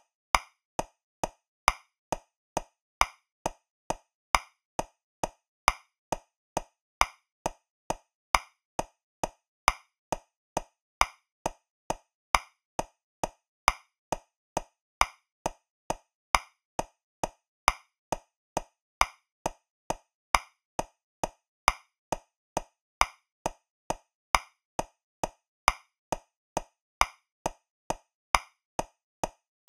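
Metronome clicking steadily at 135 beats per minute in 3/4 time, with every third click louder as the accent on the first beat of each bar.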